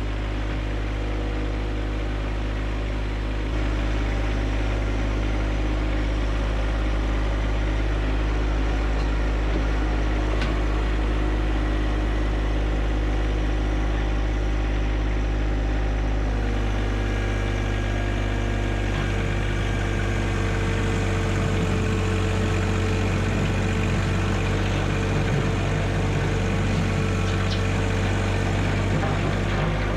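John Deere 1025R subcompact tractor's three-cylinder diesel engine running steadily while working gravel. It gets a little louder about three and a half seconds in, and its note shifts a little over halfway through.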